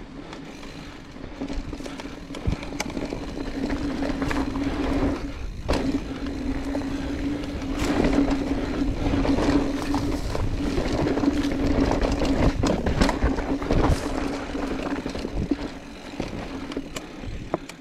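Mountain bike riding fast down a rough, technical trail: a steady buzzing hum from the rolling bike that breaks off briefly about six seconds in, over rumble and wind, with frequent sharp knocks and rattles as the wheels hit rocks and roots.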